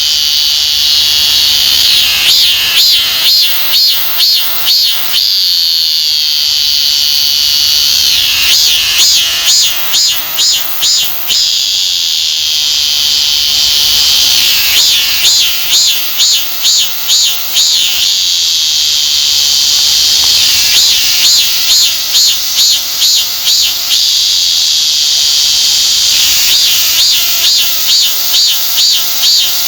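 Chammaemi cicada (Hyalessa fuscata) singing loudly. A steady high buzz breaks, about every six seconds, into a run of rhythmic pulses at about two a second, five such runs in all.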